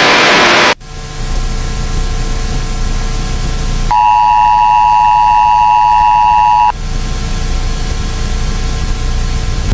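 A loud burst of static, then a steady low drone with hiss. About four seconds in, the two-tone Emergency Alert System attention signal sounds for roughly three seconds and cuts off, leaving the drone.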